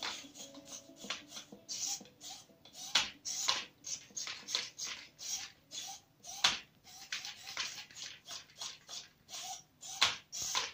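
Toy robot dog's leg servos whirring in short, irregular bursts, several a second, as it moves its legs, with a few sharper clicks.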